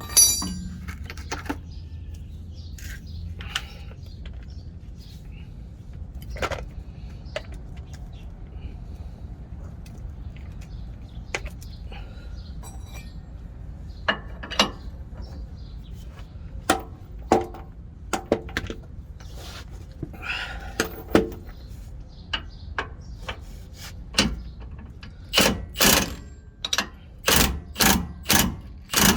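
Socket wrench working loose a rear shock absorber bolt: scattered metal clicks and knocks, then a run of quick, loud ratcheting strokes, about two a second, near the end.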